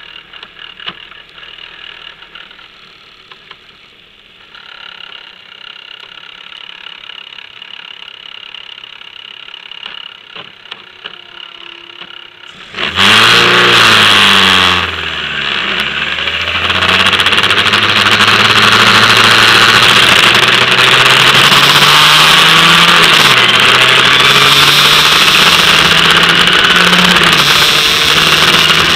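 Formula Ford single-seater racing car, first quiet for about thirteen seconds while it sits stopped, then its engine suddenly bursts in loud and is revved up and down before the car pulls away. The engine note then climbs steadily under acceleration, dipping at one gear change, with a hiss of spray from the wet track over it.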